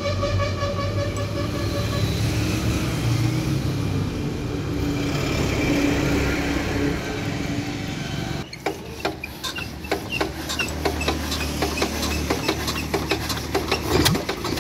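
Engine-yard sound around an Eicher single-cylinder diesel engine. For about two seconds a vehicle horn sounds over mechanical noise. After a sudden change, a steady low hum carries a quick, uneven run of metallic clicks, loudest near the end as the engine is hand-cranked.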